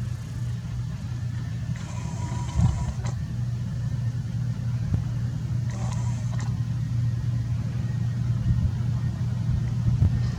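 Case IH 2388 combine running steadily as it harvests beans, a constant low engine drone. Two short higher-pitched sounds break in, about two seconds and six seconds in.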